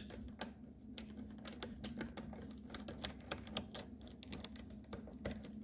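Light, irregular clicks and taps of a security Torx driver working out the screws that hold the plastic audio-control switch panel onto a steering wheel, over a faint steady hum.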